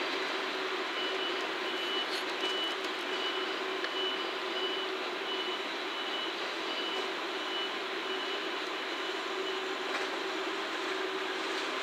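KiHa 40-series diesel railcar running at low speed through a rail yard, a steady mix of engine hum and wheel noise. A high electronic beep repeats about every 0.7 s from about a second in until near the end.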